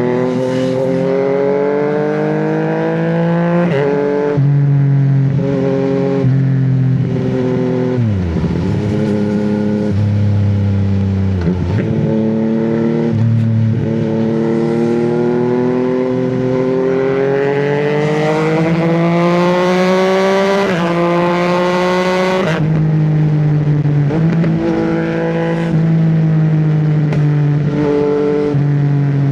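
Yamaha MT-09's three-cylinder engine accelerating on the road, its revs climbing and then dropping abruptly at each quickshifter upshift. A long pull through one gear, rising steadily in pitch, ends in a sharp drop about two-thirds of the way through.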